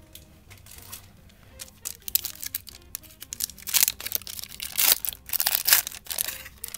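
Foil wrapper of a 1991 Upper Deck basketball card pack being torn open and crinkled by hand. The crackling starts about two seconds in and gets louder from the middle on. Soft background music plays underneath at first.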